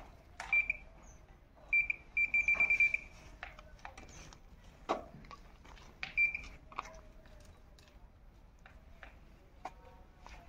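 Handheld metal-detecting pinpointer beeping at a high pitch as it is held against the dirt: single beeps, then a quick run of beeps, then one more about six seconds in, signalling metal in the soil. A few knocks and scrapes of stones and earth being moved by hand come between the beeps.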